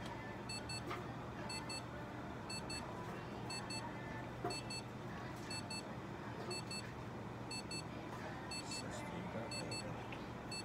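Faint electronic alarm beeping: a pair of short high beeps repeating about once a second, over a steady low hum.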